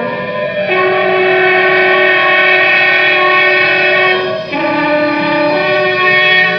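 Trumpet and non-pitched horns playing overlapping long held tones that change pitch about a second in and again around four and five seconds in.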